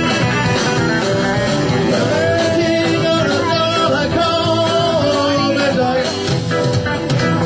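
Live rock and roll music led by guitar, with a held melodic line that bends in pitch over a steady band backing.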